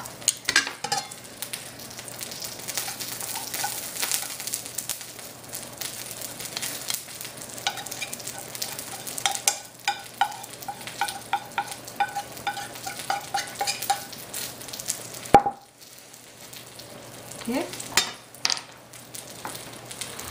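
A tortilla frying and crisping, with a steady sizzle. Light clicks and taps of tongs on a plate are heard over it, with one sharp knock about fifteen seconds in.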